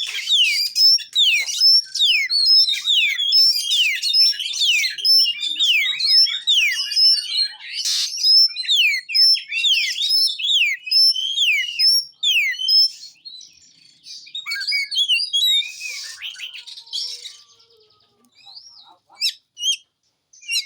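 Oriental magpie-robin (kacer) singing a fast, dense run of sharp whistled notes that fall in pitch, several a second. About two-thirds of the way in the song thins out to scattered chirps and short phrases.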